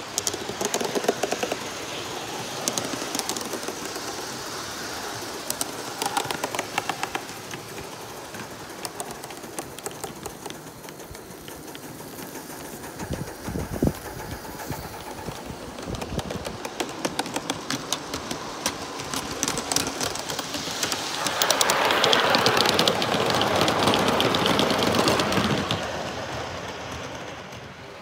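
1/32 scale live-steam model of NSWGR locomotive 3820 running with a goods train: fast, irregular clicking and rattling of the wheels and wagons on the track, over a steady noise, with a louder rushing stretch about three-quarters of the way through.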